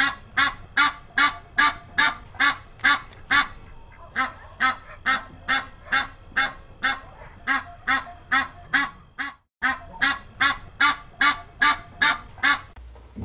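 Mallard ducks quacking in a steady, even run of short quacks, about two and a half a second, with a brief break about two-thirds of the way through.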